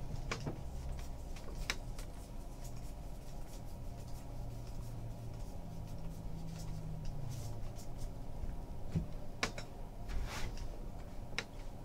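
Baseball trading cards being handled: a few short clicks and slides as cards are flipped through and set down on a table, over a low steady hum.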